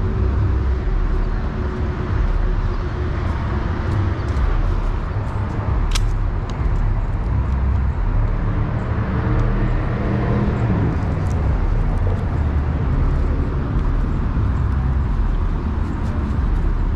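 A vehicle engine idling steadily, a continuous low rumble. A single sharp click about six seconds in.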